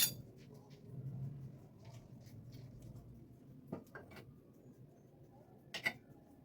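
A few sharp clicks and taps over a low steady hum: a loud click right at the start, two close together about four seconds in, and another near the end.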